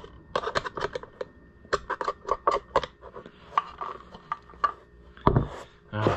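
Screwdriver tip scraping and clicking irregularly inside the recoil starter housing of a Homelite Super XL chainsaw, picking out packed old debris. There is a single heavier knock about five seconds in.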